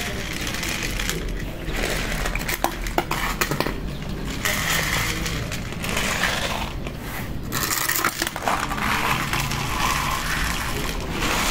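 Dry cat kibble poured from a plastic bottle, rattling into plastic plates in several bursts with scattered sharp clicks.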